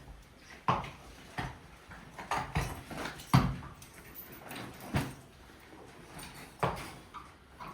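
Irregularly spaced hoof thuds and knocks, about seven of them, the loudest about three and a half seconds in.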